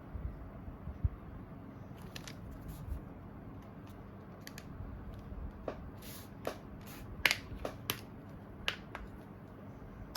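Scattered light clicks and taps of a smartphone being handled, a few sharper clicks between about six and nine seconds in, as its power button is tried.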